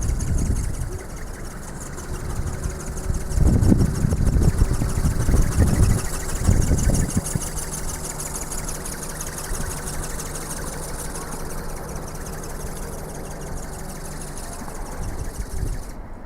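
The small brushless motor and gear drive of a radio-controlled flapping-wing ornithopter whines high with a fast pulsing, and cuts out near the end. Strong wind buffets the microphone in low rumbling gusts.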